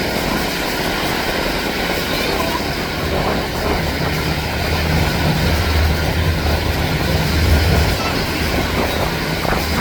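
Turboprop engines and propellers of a Canadair CL-415 water bomber, a low drone that swells from about three seconds in and fades near the end, over a constant outdoor noise of wind and surf.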